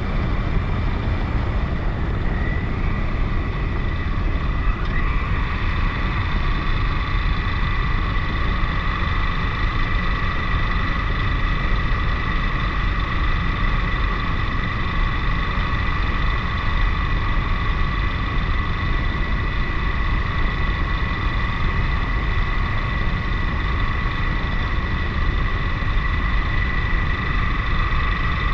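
KTM 1090 Adventure motorcycle riding at a steady pace, its engine giving a steady high whine that rises briefly and dips about five seconds in, under a heavy rumble of wind on the microphone.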